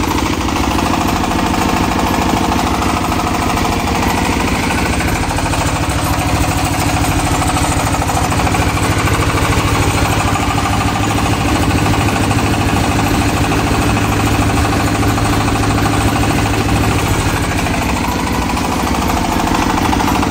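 Single-cylinder horizontal Jiang Fa diesel engine of a 20 kVA generator set running steadily, with an even, rapid firing beat.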